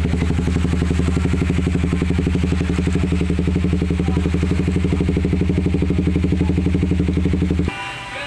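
Kawasaki 250SL's single-cylinder engine idling steadily through an F2racing CLS 20 cm stainless-steel slip-on exhaust. It cuts off abruptly near the end and music takes over.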